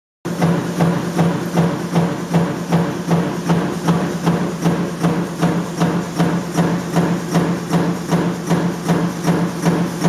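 Small metal-forming machine running, knocking in an even rhythm about three times a second over a steady low motor hum.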